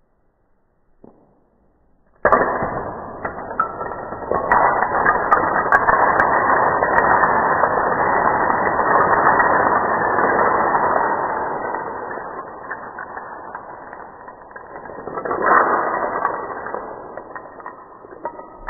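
Hundreds of wooden dominoes toppling and clattering onto a stone tile floor. A dense rattle starts suddenly about two seconds in and stays loud for several seconds as the stacked towers come down. It thins out, flares once more a few seconds before the end, then trails off into scattered clicks.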